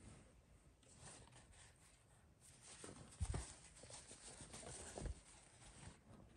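Faint handling noise from a cloth baseball cap and its paper hang tags: soft irregular rustling with a few dull thuds, the clearest about three seconds in and another about five seconds in.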